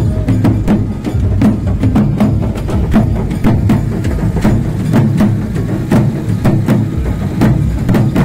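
A group of two-headed barrel drums beaten with sticks, playing a loud, fast, steady procession beat with the strokes packed closely together.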